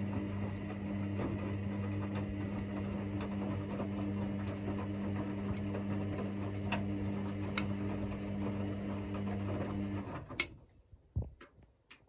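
Hoover DynamicNext washing machine in the main wash of its Cotton 40° cycle: the drum motor runs with a steady low hum while the laundry tumbles with soft knocks. About ten seconds in the motor stops suddenly with a sharp click, the drum comes to rest in its pause between turns, and only a few faint knocks follow.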